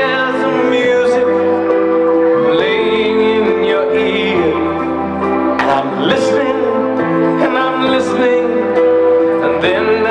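Background music: a slow song with a singing voice over sustained held chords.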